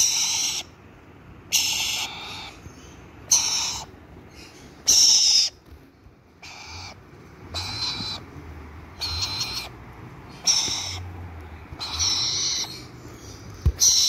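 Young black-capped lories giving hoarse, screechy calls over and over, each about half a second long, roughly one every second or so.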